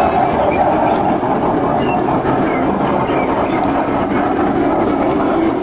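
G-scale model train, its passenger coaches' wheels rolling along the track with a steady rolling noise.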